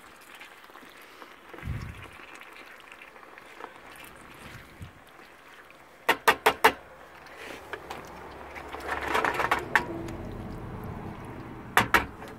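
Tomato sauce with tortellini simmering in a frying pan on a portable gas stove. A quick run of four sharp clicks comes about six seconds in, and two more come near the end.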